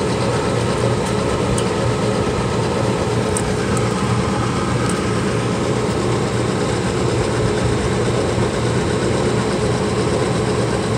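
Steady machine hum with a fixed drone and a few faint ticks.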